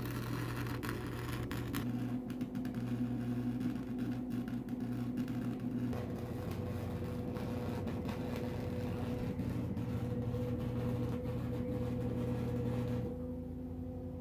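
Electric arc welding: the arc crackles and hisses over the welder's steady electrical hum. The crackle stops about a second before the end, and the hum carries on.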